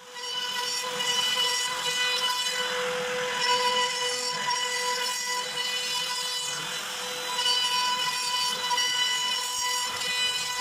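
Makita trim router on a CNC gantry running at full speed, a steady high whine, while its bit cuts slots through 9 mm plywood. The cutting noise swells and eases as the bit moves through the wood.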